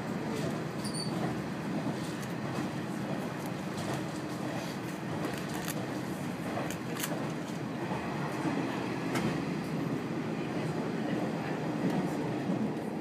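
Diesel railcar running along the line, heard from inside the passenger cabin: a steady rumble of engine and wheels on the rails, with occasional sharp clicks.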